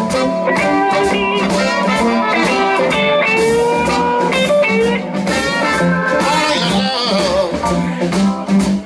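A live blues band plays the instrumental intro of a song: a guitar takes the lead, with bending notes, over bass and a steady drum beat.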